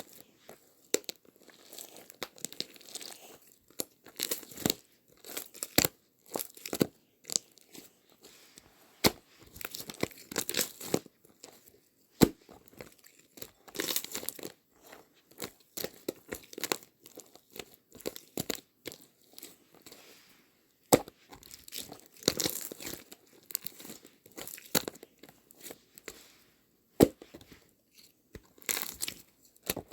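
Irregular crinkling and rustling from something being handled close up, with occasional sharp clicks.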